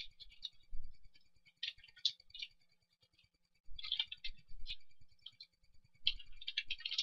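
Computer keyboard typing in short bursts of quick key clicks, with a pause of about a second midway.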